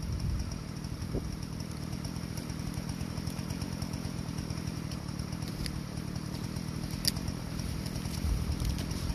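An engine idling steadily with a low, even hum, and a brief sharp tick about seven seconds in.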